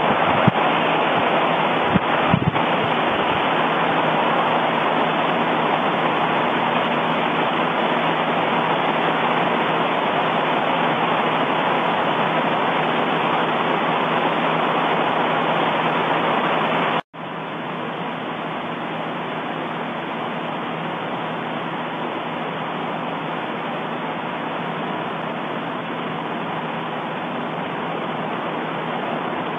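Erupting volcano: a steady rushing noise with a few sharp pops in the first couple of seconds. The noise cuts out for an instant about seventeen seconds in and resumes a little quieter.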